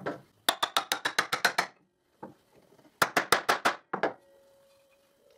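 Two quick runs of sharp taps, about eight a second, driving an oak tenon into its through mortise. The joint is a tight fit that needs knocking home.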